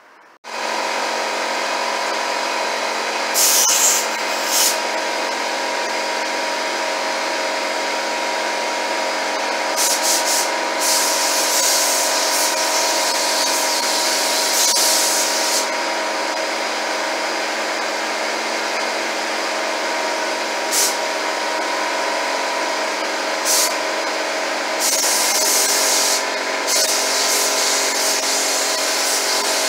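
Paint spray gun hissing in several bursts as it is triggered over a cabinet door panel, the longest burst about five seconds, over a steady machine drone that starts about half a second in.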